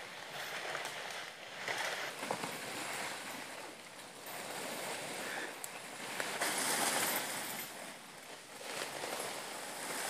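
Rustling and crunching of dry leaves and brush underfoot as elephants and people walk through forest undergrowth, coming in swells, with a few sharp snaps.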